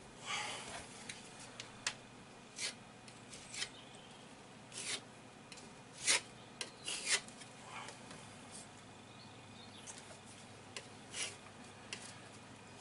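Filler knife scraping and smoothing plaster filler into holes in a wall, in short, irregular strokes.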